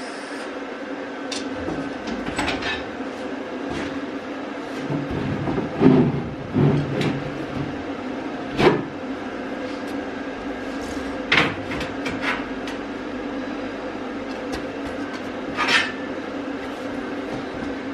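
Scattered knocks and clanks of a freshly welded steel tank bracket being handled and tried around a water tank, the loudest about six and nine seconds in, over a steady hum.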